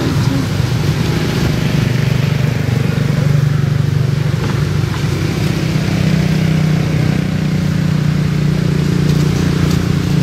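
Steady low-pitched hum of an engine running, unchanging throughout.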